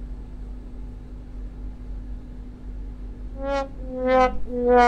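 Three short, steady-pitched horn-like notes about half a second apart near the end, over a steady low hum.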